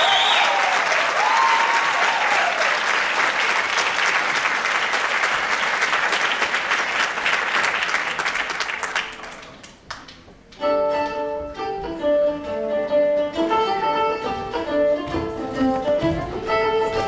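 Audience applause with a few whistles, tailing off about nine seconds in; after a brief lull, an acoustic Irish folk band with guitar and banjo starts playing a tune.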